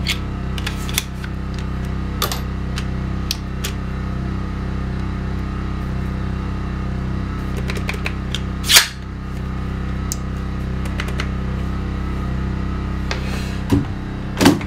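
Corded electric nail gun clicking and snapping several times against a plywood panel, one much louder shot nearly nine seconds in, over the steady hum of a small portable generator. The owner suspects the generator is not powerful enough to run the nail gun properly.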